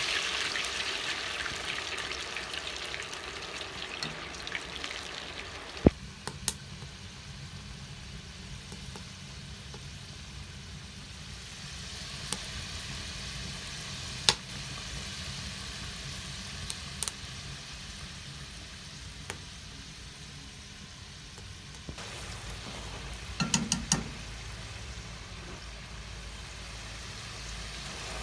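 Potato chips deep-frying in hot oil, a steady sizzle that is loud for the first six seconds, then drops to a quieter level after a sharp click. Scattered clicks follow, and a few quick metal clinks come near the end as the wire spider strainer stirs the chips in the aluminium pan.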